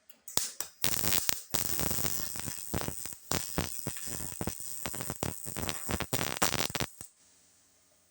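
MIG welder running .024 solid wire, stitch-welding a thin sheet-metal patch panel: a crackling arc in a string of short bursts with brief breaks, stopping about a second before the end.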